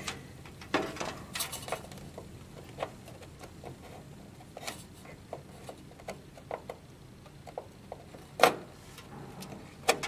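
Small plastic clicks and taps of a RAM module being handled and pressed into a motherboard memory slot, with one sharp, louder click near the end as it seats.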